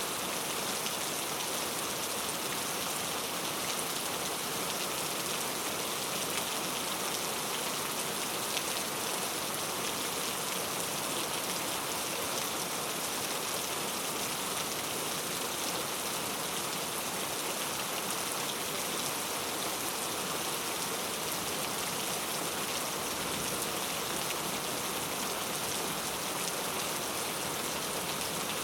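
Steady heavy rain falling on surfaces, an even dense patter with no breaks or changes.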